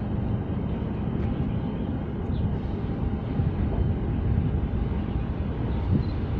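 Steady low rumble of a large container ship's machinery as it passes close by, with a faint steady hum.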